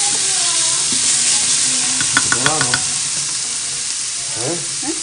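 Diced onion sizzling in a stainless steel frying pan while a spatula stirs it. A few sharp clicks come a little over two seconds in.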